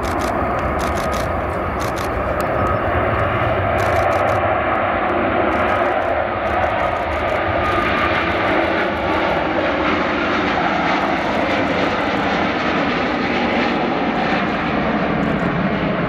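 Airbus A350's two Rolls-Royce Trent XWB turbofans at takeoff thrust, a loud, steady jet noise through the takeoff roll, lift-off and initial climb.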